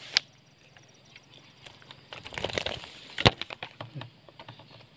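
Climbing perch flapping and thrashing on the line as it is lifted out of the water and grabbed by hand: a swell of rustling a little past halfway, then a sharp click and a run of light ticks.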